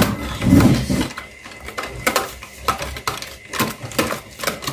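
Kitchenware clinking and knocking irregularly, a utensil working against a bowl as brownie batter is mixed by hand.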